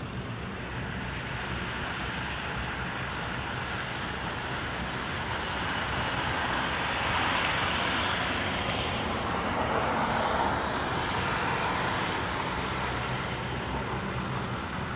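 Bombardier Dash 8 Q400 turboprop on its take-off roll, its two engines and propellers at take-off power making a steady rush of noise that swells in the middle.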